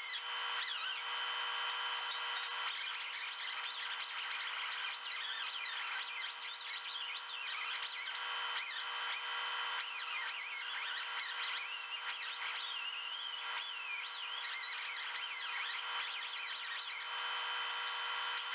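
Right-angle air die grinder with a 3M abrasive pad running against an aluminum boat propeller, scrubbing paint off around a crack. Its whine wavers up and down in pitch as the pad loads and unloads on the metal.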